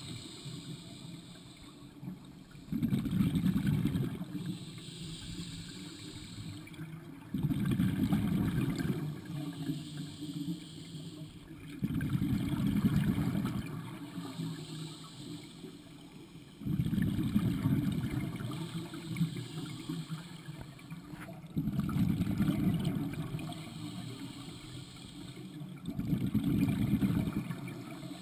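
Scuba diver breathing through a regulator underwater. About every five seconds a loud burst of exhaled bubbles comes out of the regulator, six times in all, with a fainter inhalation hiss between bursts.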